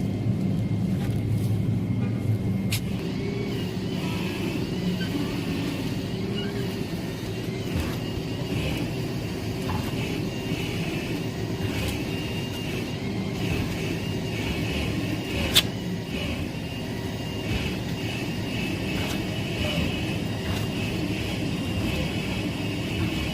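A car running with a steady mix of engine and road noise. A single sharp click comes about two thirds of the way through.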